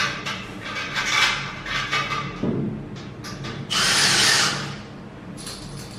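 Cordless drill run in short bursts, with a rising spin-up just before the longest and loudest burst about four seconds in.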